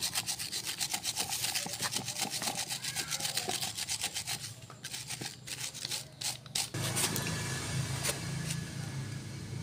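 Rapid back-and-forth scraping of a hand tool over the universal-joint yoke of a propeller shaft, about six strokes a second, scraping off dirt and rust. After about four and a half seconds the scraping stops and gives way to a few sharp metal clicks, and a low steady hum starts about seven seconds in.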